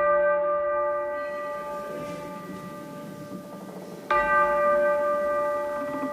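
A bell ringing out and slowly fading, struck again about four seconds in.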